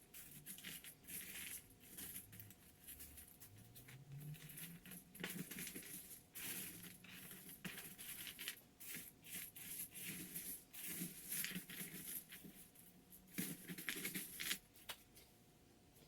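Faint rustling, crinkling and light clicking of things being handled close by.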